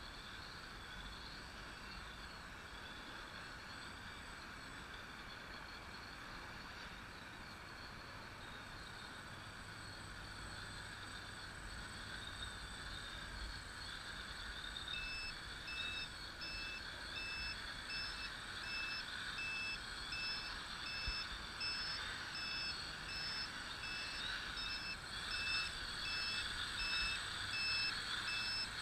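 Multirotor drone's propellers whining steadily as it hovers and flies low, growing louder as it comes closer. From about halfway on, a high-pitched electronic beeper beeps repeatedly, about twice a second.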